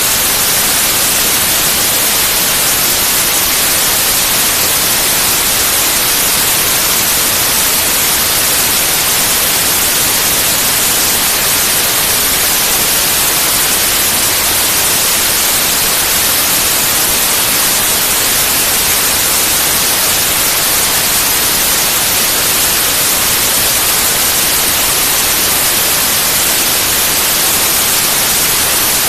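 Steady, loud white noise: an even, unchanging hiss, brightest in the high frequencies.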